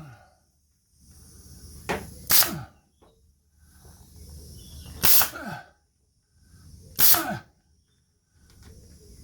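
A staple gun firing staples into the soft-top fabric: four sharp shots, two in quick succession about two seconds in, then single shots a few seconds apart.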